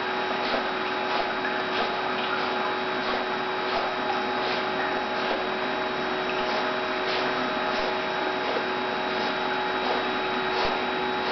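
Hydrotherapy pool's pump and jets running with a steady hum, the water churning. Light splashes come about one and a half times a second as the Leonberger paddles.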